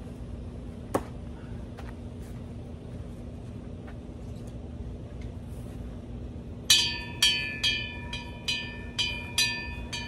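A hanging metal bell is hit by a thrown knife and rings on with about eight strikes, roughly two a second, as it swings. Each strike fades, and the first is the loudest. A single sharp click comes about a second in.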